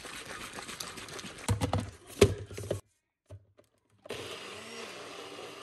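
Blender blending frozen banana and mango into a protein shake: a steady rushing whir with several loud clunks of frozen chunks about one and a half to two and a half seconds in. It cuts off suddenly, and background music begins near the end.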